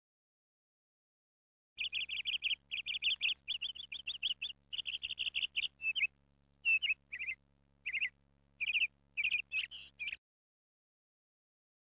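Birds chirping and twittering in quick runs of short, high calls and trills. The sound cuts in abruptly about two seconds in and stops just as abruptly near the end, with dead silence either side.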